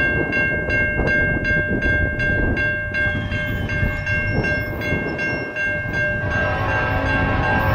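Railroad crossing bell ringing steadily, about three strokes a second, as the crossing gates come down, over a low wind rumble. About six seconds in, the Nathan K5LLA five-chime air horn of the leading EMD SD70ACE locomotive starts blowing over the bell.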